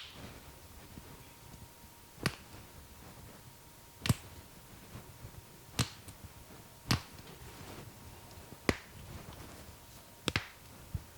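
A series of sharp cracks from the masseur's hands during a head massage, about eight in all, one every second or two, with two in quick succession near the end.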